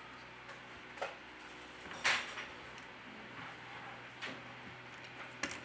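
A few light clicks and knocks from a disassembled smartphone's parts being pressed and handled on a work table. The sharpest click comes about two seconds in, with others about a second in and near the end.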